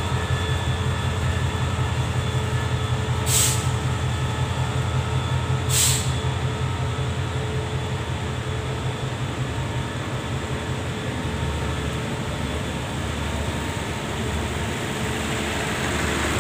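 Diesel locomotive of an express passenger train running at the station, a steady low engine rumble with a fast throb, with two short high-pitched hisses about two and a half seconds apart.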